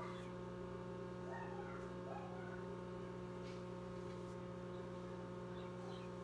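Steady low electrical mains hum, with a few faint brief sounds over it.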